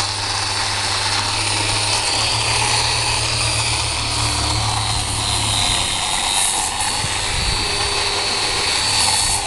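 Electric power tool motor running steadily, a high whine over a rushing noise, while fiberglass on a boat rudder is worked. A low hum beneath it drops away about six seconds in.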